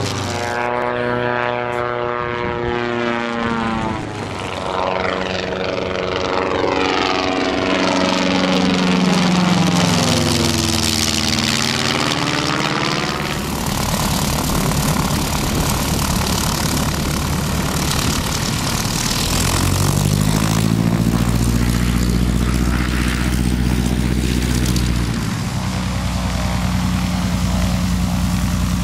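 Propeller-driven light aircraft engines during low passes over the field. The engine tone falls in pitch as a plane flies past, then a second engine rises in pitch about twenty seconds in and holds steady.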